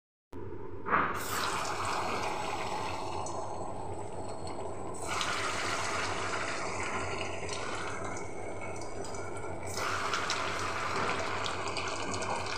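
Chhena (cottage-cheese) patties sizzling as they fry in hot oil in a kadai: a steady crackling hiss that flares up sharply about a second in.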